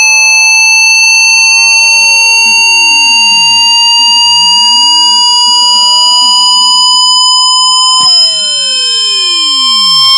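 Synthesized electronic test tones: a loud steady high tone that creeps slowly upward in pitch, with higher tones stacked above it, while other tones sweep up and back down in long arcs, crossing the main tone about a second in and again about seven seconds in.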